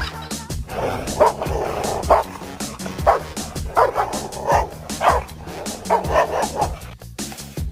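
A dog barking repeatedly, about one short bark a second with uneven gaps, over background music.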